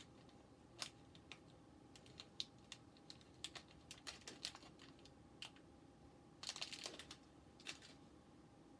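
Small metal screws clicking and rattling as they are picked through by hand, in irregular light clicks with a short flurry about two-thirds of the way in, over a faint steady hum.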